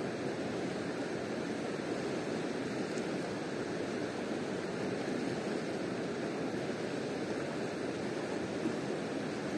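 Steady rushing of a fast-flowing river, an even, unbroken wash of water noise.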